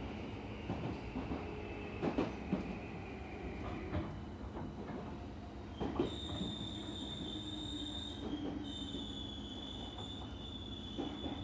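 Meitetsu 5000 series electric train heard from inside the passenger car: steady running rumble with a high whine gliding slowly down in pitch, and sharp clacks of the wheels over rail joints. From about six seconds in, a high steady wheel squeal sets in and holds.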